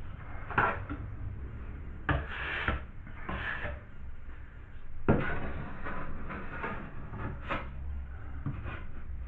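Drywall knife scraping and spreading joint compound on gypsum board in repeated strokes, with a few sharp knocks, the loudest about five seconds in.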